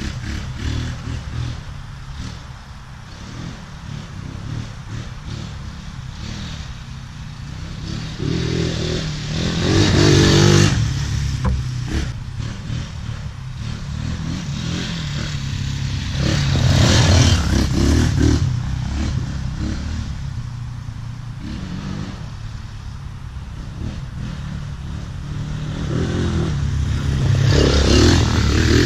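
Tornado 250cc Chinese quad's engine running, the revs rising and falling with the throttle, loudest about ten seconds in, again around seventeen seconds, and near the end.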